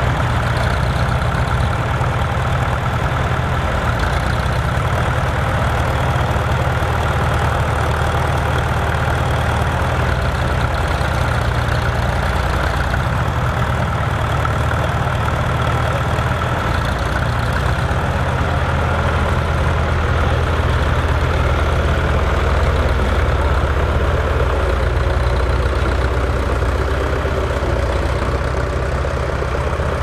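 Fiat 513R tractor engine running steadily while pulling a six-furrow plough through a field.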